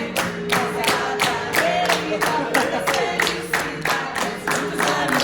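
A group of people singing a birthday song in Portuguese while clapping a steady beat, about three claps a second.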